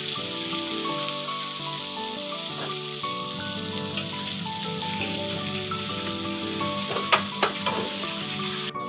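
Cornflour-coated chicken pieces deep-frying in hot coconut oil in a wok: a steady sizzle, with a few short knocks about seven seconds in.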